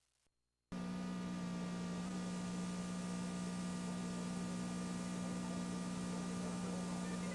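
Steady electrical mains hum with tape hiss, switching on abruptly under a second in after a moment of silence: hum on a VHS tape's audio during playback.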